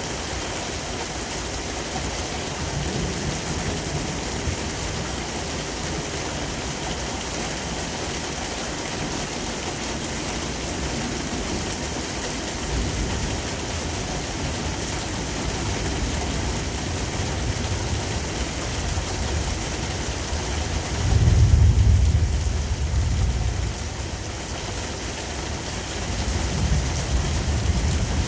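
Steady heavy rain with thunder rumbling low several times. The loudest roll comes about three quarters of the way through and lasts a couple of seconds, and a weaker one follows near the end.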